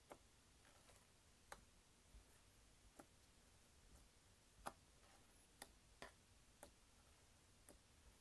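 Faint, irregular small clicks and pops of slime being worked by hand, about one a second over near silence, the loudest a little past halfway.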